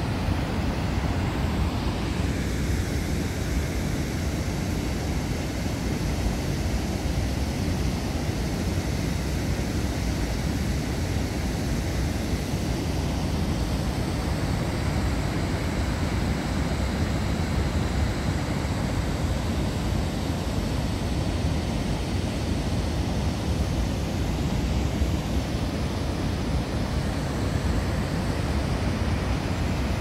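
Steady rushing of water pouring over a river weir, an even, unbroken noise heaviest in the low rumble.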